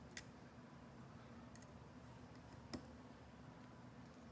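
Near silence, low room hum, with two faint short clicks: one just after the start and one about two and a half seconds later.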